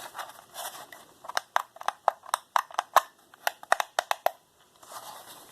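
Sharp, irregular clicks and clacks of hard plastic as a toy RC car and its parts are handled, about a dozen over three seconds starting about a second in.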